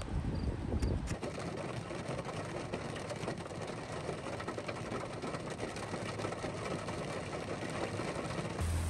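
Steady rain: an even hiss dotted with many small drop ticks, after a low rumble cuts off about a second in.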